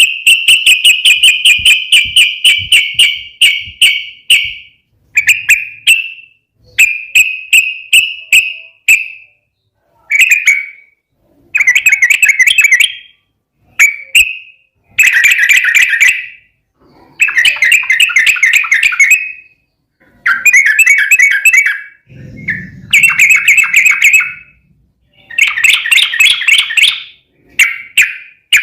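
Yellow-vented bulbul (trucukan) singing actively: phrase after phrase of very fast chattering notes, each phrase lasting a second or two, with short pauses between.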